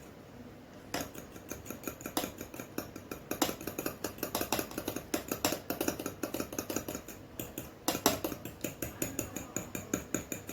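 Egg and milk being beaten together in a bowl for an egg wash, with an eating utensil clicking rapidly and repeatedly against the bowl.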